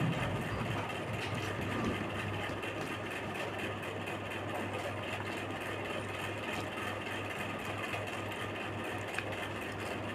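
Steady low mechanical hum with a fast, even pulsing, running without a break.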